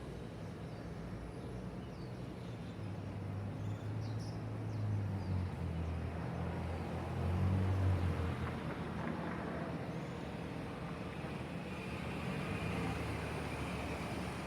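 City street ambience: a steady traffic hum, with a vehicle's low rumble swelling past in the middle and fading again.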